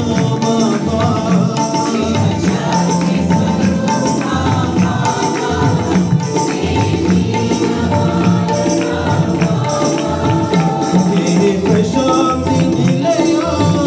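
Sai bhajan, an Indian devotional song, sung to a steady jingling percussion beat.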